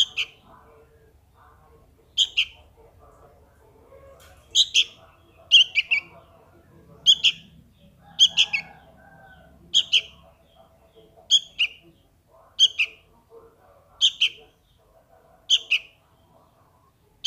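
Fledgling sooty-headed bulbul calling for its parent: short high begging calls, often in pairs or threes, repeated every second or so.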